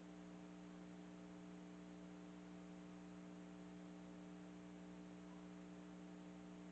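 Compact countertop ice maker running: a faint, steady electrical hum from its compressor.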